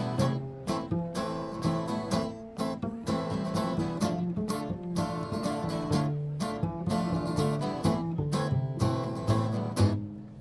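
Instrumental passage of a folk song: acoustic guitar strummed over an upright double bass played pizzicato, walking through low notes.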